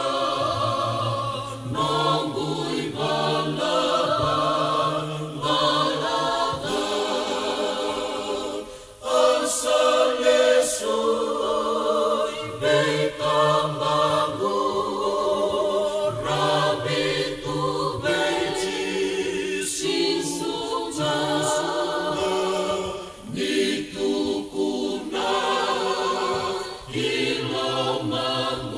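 Gospel choir singing a Fijian hymn a cappella, several voices in harmony, in phrases with a short break about nine seconds in.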